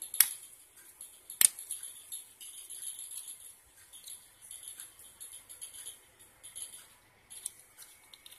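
Handling noise from a small plastic bicycle tail light and its packaging. Two sharp clicks come a quarter second and about a second and a half in, then light, irregular plastic rattling and rustling.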